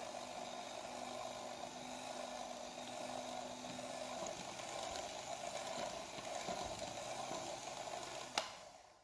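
Electric hand mixer running steadily at its lowest speed, its beaters blending whipped cream and mascarpone frosting. Near the end there is a single click, and then the motor sound dies away.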